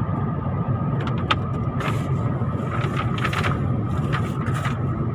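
Steady road and engine noise heard from inside a car moving at highway speed, a low rumble with a faint steady tone above it. A few short sharp clicks come through in the middle.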